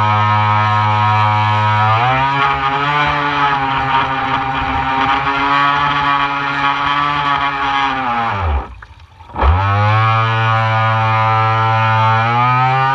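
RC model boat's motor running with a steady whine. The pitch steps up about two seconds in; around two-thirds of the way through it winds down to a stop for under a second, then spins straight back up to speed.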